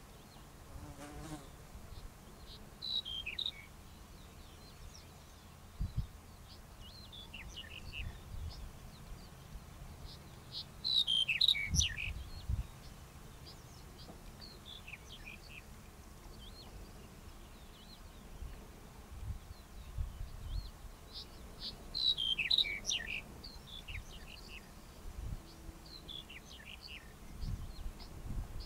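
Male black-headed bunting singing: a short jangling phrase of quick notes that fall in pitch, repeated every few seconds and loudest about 11 and 22 seconds in. There are occasional low thumps.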